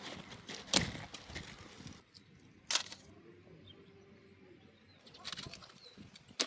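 A few sharp clicks or cracks, three in all, spread over the few seconds.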